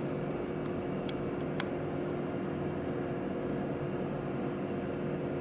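Steady mechanical hum of room background noise, with several constant tones, and a few faint light clicks in the first two seconds.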